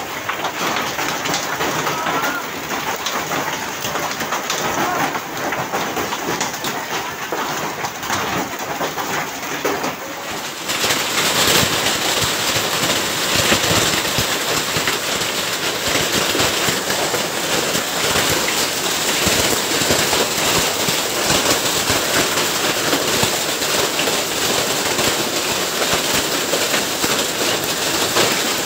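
Hailstorm: hail and heavy rain falling on pavement and parked motorbikes, a dense steady hiss full of small hits. About ten seconds in it switches abruptly to a louder, brighter downpour.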